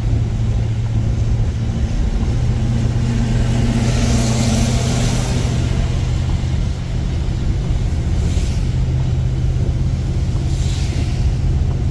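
Car driving on a wet road, heard from inside the cabin: steady engine drone and tyre noise, with the engine pitch stepping up twice as it gathers speed. A hiss of wet-road spray swells three times, at about four, eight and a half and eleven seconds in.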